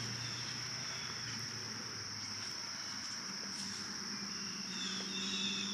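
Steady, high-pitched insect chorus, a continuous trill holding one pitch throughout.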